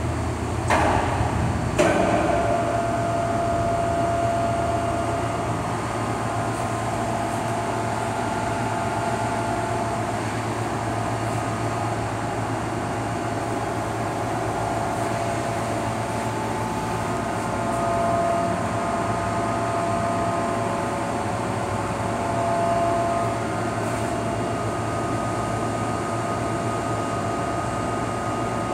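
Steady drone of heavy shop machinery and ventilation in a large steel fabrication hall, with a low hum and several steady whine tones that shift in pitch now and then. Two sharp metallic clanks about one and two seconds in.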